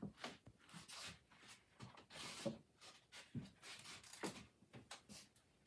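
Faint, irregular clicks and rubbing of hands handling HO-scale model train cars on the layout's track.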